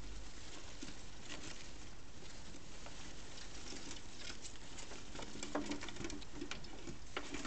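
Gerbils and their pups scurrying and scratching through loose wood-shaving bedding in a plastic tank. It makes a steady light patter of many small scratches and rustles.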